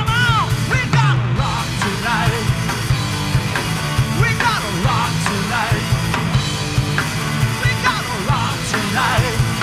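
A rock band playing live: electric guitars, bass and drums, with a high lead line that bends and wavers in pitch over a steady low pulse.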